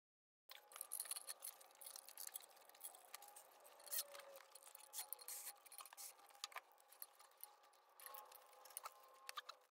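Faint scattered clicks, taps and scraping from hands and a tool handling metal parts of a supercharger's drive belt and mounting bracket in an engine bay.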